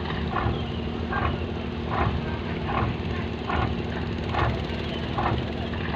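Fishing boat's engine running steadily, with a regular pulse a little faster than once a second over a constant low hum.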